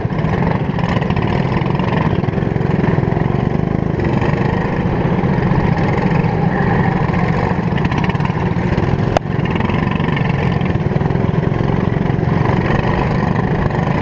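Kart engines running steadily at low, even speed as a pack of karts rolls along together, with no hard revving. A single sharp click sounds about nine seconds in.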